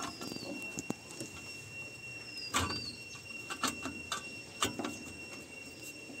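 Light clicks and knocks of a galvanised sheet-metal cover being handled and pressed into place over a washing machine's display circuit board: a handful of scattered taps, the loudest about two and a half seconds in.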